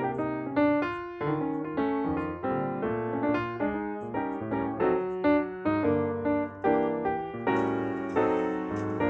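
Background piano music: a calm run of single notes and chords, several a second, each fading after it is struck.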